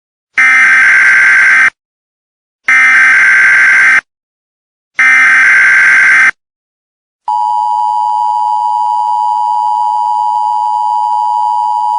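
US Emergency Alert System broadcast tones: three loud, equal bursts of buzzing digital data (the SAME header), each just over a second long with a pause of about a second between, then the steady two-pitch attention tone starting about seven seconds in.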